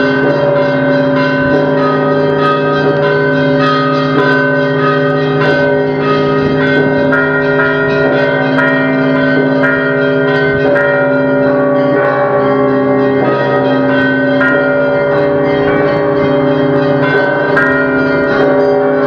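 Orthodox cathedral bells pealing: several bells of different pitches struck over and over, their ringing tones overlapping without a break.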